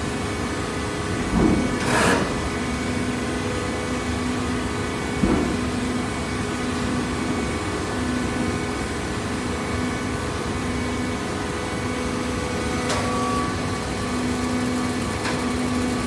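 Plastic bottle baling machine running: a steady mechanical hum with a lower tone that cuts in and out every second or so. A couple of knocks come near the start, and another follows about five seconds in.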